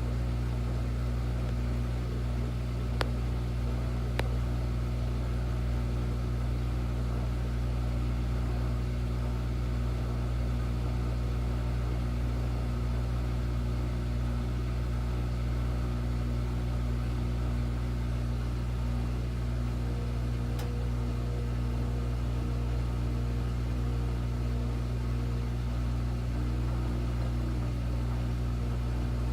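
Washing machine that won't spin, running with a steady low mechanical hum, with two sharp clicks about three and four seconds in and another about twenty seconds in.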